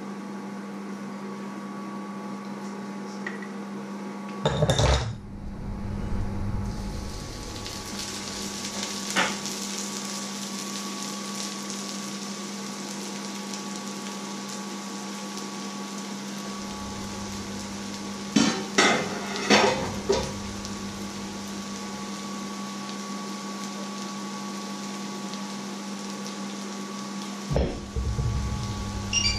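Pots, lids and utensils clatter: a loud clank about five seconds in, a quick run of clanks around twenty seconds, and another near the end. From about seven seconds in, sliced onions sizzle steadily in a frying pan over a steady low hum.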